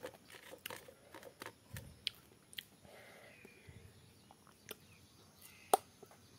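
Close-up chewing of mango slices: a run of small wet mouth clicks and crunches, with one sharper click near the end.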